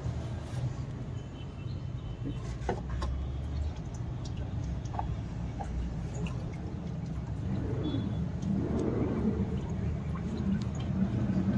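Oil filter being unscrewed with a filter wrench: scattered light clicks and taps of metal over a steady low rumble. A louder rushing noise builds over the last few seconds.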